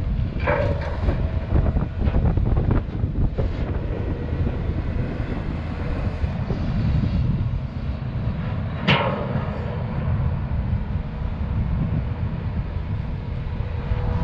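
Volvo EC210B LC excavator's diesel engine running under working load, with a faint steady whine over its rumble. In the first two seconds soil and rocks tumble from the bucket into the steel dump-truck bed with a clatter; about nine seconds in there is a single sharp knock as the bucket digs into the dirt pile.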